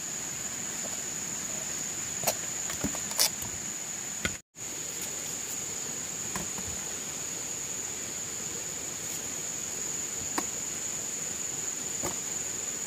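Insects chirring in a steady, continuous high-pitched drone, with a few faint clicks over it. The sound cuts out completely for a moment a little before halfway through.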